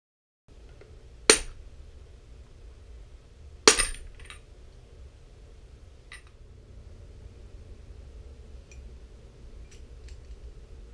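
Two sharp mallet taps on metal, about two and a half seconds apart and ringing briefly, as a new bearing is driven into a KX125 two-stroke engine case. A few light metallic clinks of parts being handled follow, over a low steady hum.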